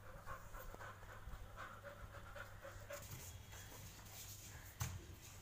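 Labrador retriever panting in short, repeated breaths. A single sharp knock near the end.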